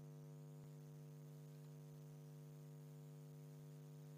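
Near silence: a faint, steady electrical hum, with one faint click about half a second in.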